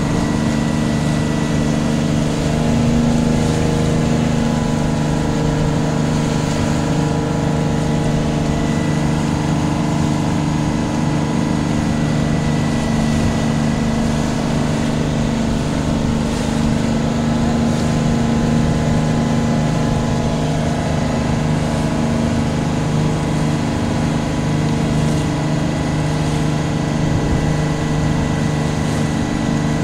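A tour boat's engine running steadily underway, heard from on board: an even, unchanging drone.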